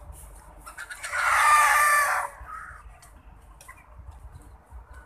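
A rooster crowing once, about a second in, one call lasting about a second and a half.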